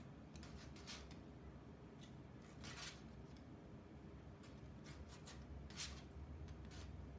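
Faint rustling and light scratchy taps of cut-out shadow puppets and their rods being handled behind a paper screen, a few short bursts over a low steady hum.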